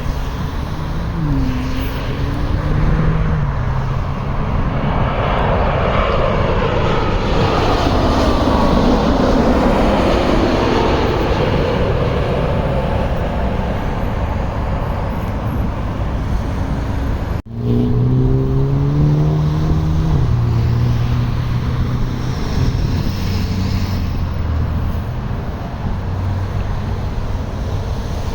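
Jet airliner on landing approach passing overhead, its engine noise swelling and fading with a sweeping hiss, over nearby road traffic with car engines shifting gears. The sound cuts out for an instant about two-thirds through.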